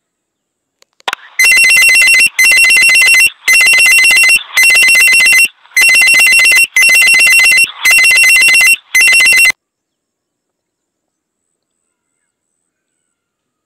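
Electronic alarm-style ringing sound effect: eight loud rings about a second apart, each a steady two-tone buzz, cutting off abruptly after about eight seconds. It is the quiz timer's time-up alarm before the answer is shown.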